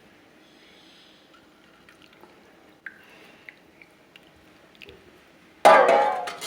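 Hot kadha being strained: a few light clinks of utensils, then near the end a sudden loud gush of liquid poured through a strainer, lasting under a second.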